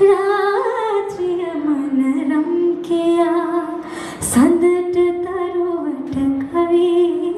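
A woman singing a Sinhala song solo into a microphone, unaccompanied, holding long notes with vibrato. A short break for breath about four seconds in.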